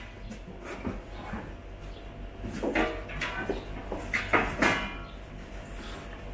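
Unpacking noises: plastic wrap rustling, styrofoam squeaking and scraping, and black metal bars of a TV floor stand knocking as they are lifted out of their carton, in short irregular bursts.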